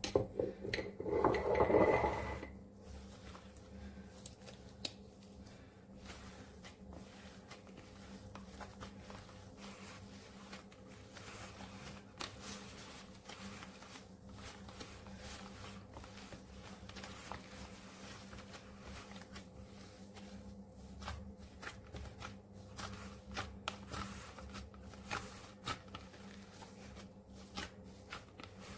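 Gloved hand kneading a soft dough of mashed boiled potato and breadcrumbs in a plastic bowl: faint, irregular squishing and rubbing with small clicks, over a low steady hum.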